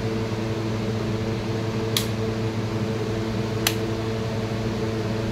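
A 6-amp plastic rocker switch on a wired electrical board clicks twice as it is switched, about two seconds in and again under two seconds later. A steady low hum runs underneath.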